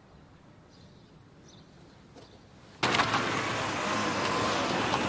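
Quiet room tone, then nearly three seconds in a sudden switch to steady road traffic noise, with a car running close by.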